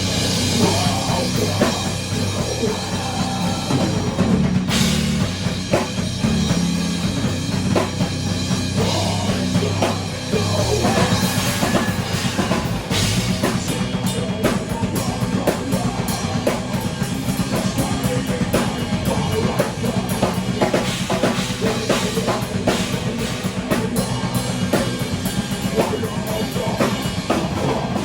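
Heavy rock band playing an instrumental passage at rehearsal: a drum kit with bass drum and snare pounds out a driving beat over sustained low guitar and bass. The drumming gets denser and faster about halfway through.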